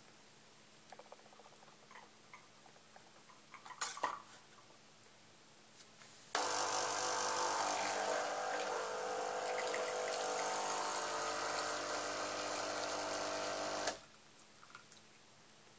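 Krups espresso machine's pump humming steadily for about seven and a half seconds while pulling a shot, starting and cutting off abruptly; the shot is a bit too short. A few clicks come before it, the loudest about four seconds in.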